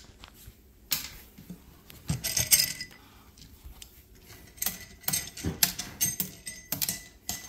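Small hard aquarium pieces clinking and clattering together in quick, light clicks, in clusters: the busiest about two seconds in and again from about four and a half seconds to near the end.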